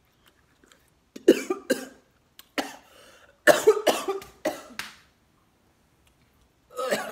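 A woman coughing in several harsh fits, set off by the sharp, too-zesty taste of an orange she has just bitten into.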